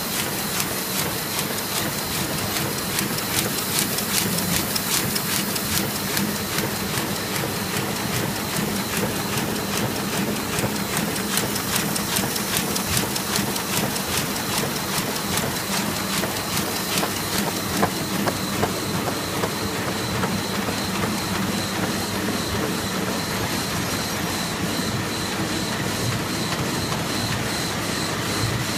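Heidelberg Speedmaster SM 74 four-colour sheetfed offset press running and feeding sheets: a steady mechanical hum under a rapid, continuous clatter from the feeder and sheet transport.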